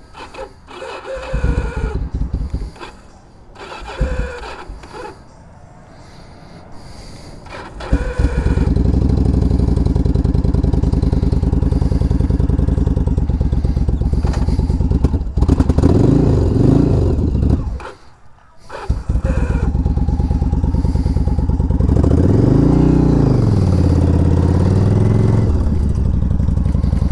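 Cold start of a 2004 Yamaha V-Star 1100 Classic's air-cooled V-twin: the electric starter cranks in uneven bursts with an unusual noise, which the owner fears is a failing starter bearing, until the engine catches about eight seconds in and runs. It is revved twice, stops briefly in between and is started again.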